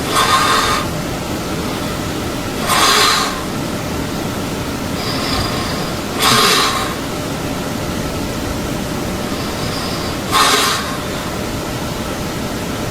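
Person snoring in sleep: four loud, noisy snoring breaths spaced about three to four seconds apart, with fainter breaths between them, over a steady background hiss.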